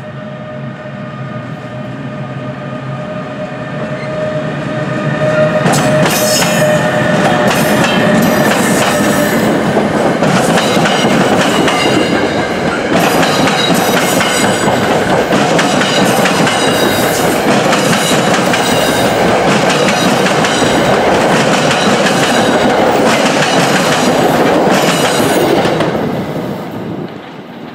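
New Jersey Transit electric train, an ALP-46 locomotive with Comet V coaches, approaching and passing close by at speed. A rumble builds with a few steady tones over it, then there are about twenty seconds of loud wheel-on-rail noise with clicking over the rail joints. It falls away sharply near the end.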